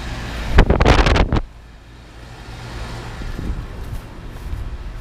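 Air-conditioner condensing units running outdoors with a steady low hum. About half a second in comes a brief, loud rush of noise lasting under a second, louder than the units.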